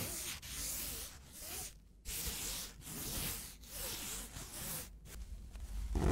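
Close-miked rubbing of a garment's fabric by white cotton-gloved hands: a series of soft rubbing and rustling strokes, each under a second, with short pauses between. A louder sound starts just at the end.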